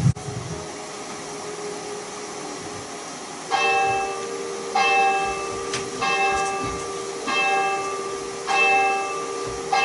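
A large bell tolling slowly, one stroke about every second and a quarter, starting about three and a half seconds in, each stroke ringing on over a steady hum. It is quieter before the tolling begins.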